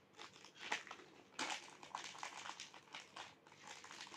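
Faint crinkling and rustling of a small plastic snack wrapper handled by hand, in a string of short, irregular crackles.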